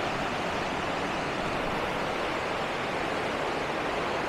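Mountain river rapids rushing over boulders: a steady, even rush of white water.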